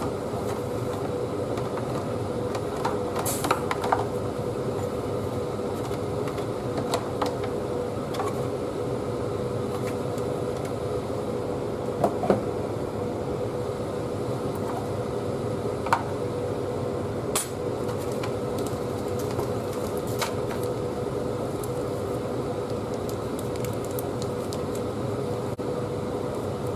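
A steady mechanical hum, like a fan or air conditioner running, with scattered light clicks and knocks of small hard objects being handled, a few seconds apart.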